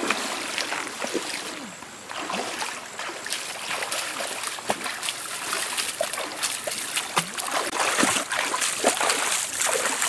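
Feet splashing as a person wades through a shallow, fast-flowing stream, irregular steps over the steady rush of the current, with sharper splashes in the second half.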